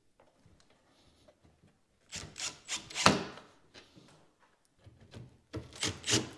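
Wooden cabinet parts rubbing and scraping against each other as a ready-to-assemble base cabinet is worked together. The sound comes in two runs of short strokes, about two seconds in and again near the end.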